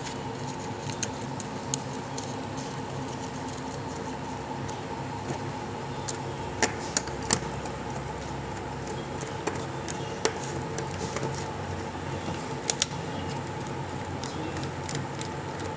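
Small scattered clicks and taps of a tester screwdriver and thin wire on the screw terminals of plastic electrical switches as the wire is fitted and the screws are tightened, with a few sharper clicks a little before halfway and again later. A steady low hum runs underneath.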